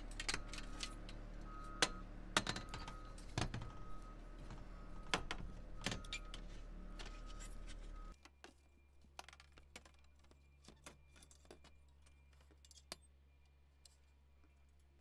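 Metal clicks, clinks and knocks of a Vantech roof rail, with its Allen screws, being set down on the Mercedes Sprinter's roof and shifted into line over the mounting holes. A steady background hum cuts off about eight seconds in, and the clicks after that are fainter.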